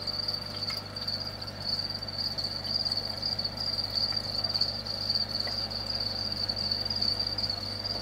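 A crowd of home-bred feeder crickets calling together in one continuous, high-pitched chirring, with the males singing in their breeding season. The noise is incredible, with a steady low hum beneath it.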